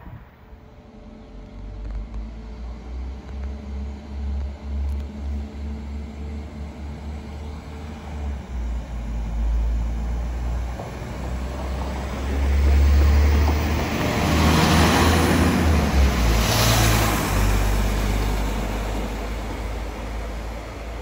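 Transport for Wales Class 197 diesel multiple unit on the move: a low, pulsing engine rumble with wheel and rail noise. It builds as the train comes closer, is loudest about two-thirds of the way through, then eases off.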